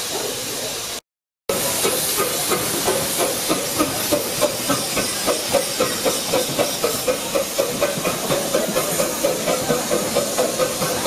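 A 15-inch gauge miniature steam locomotive hissing steam and chuffing steadily as it moves off, about three exhaust beats a second. The sound drops out completely for about half a second near the start.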